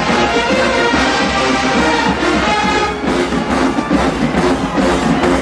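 College marching band playing: a brass section holds full chords over drums, and the drum strokes come through more strongly about halfway through.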